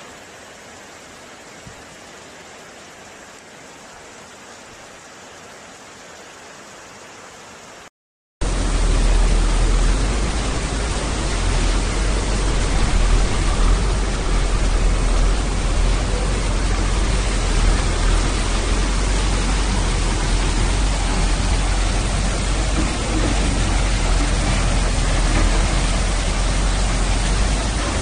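Floodwater rushing in a steady noisy roar, fairly soft at first. The sound cuts out briefly about eight seconds in and returns as a much louder, denser rush with a heavy low rumble.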